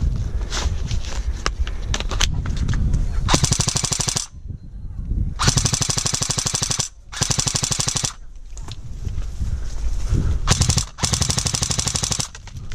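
Airsoft guns firing: a few single shots in the first few seconds, then several long full-auto bursts of rapid, evenly spaced pops, each lasting one to two seconds.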